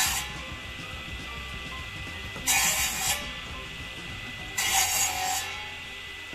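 Three rough scraping strokes, each just under a second long and about two seconds apart, over a steady background.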